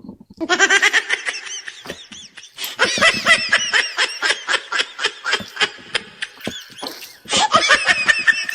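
Canned laughter from a laugh track: people laughing in quick pulsing bursts, in three bouts with short lulls about two seconds in and near the end.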